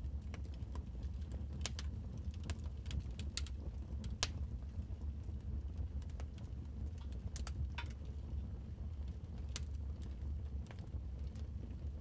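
Wood fire crackling: irregular sharp pops and snaps, a few each second, over a low steady rumble, with one louder pop about four seconds in.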